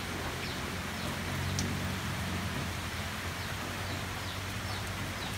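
Steady hiss of rain outdoors, with faint short bird chirps every second or so over a low steady hum.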